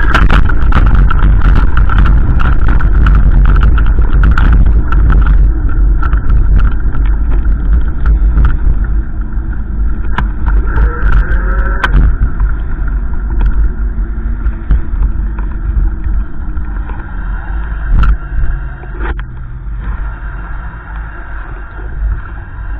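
Wind buffeting the microphone: a loud, gusting low rumble with scattered crackles, easing off somewhat in the second half.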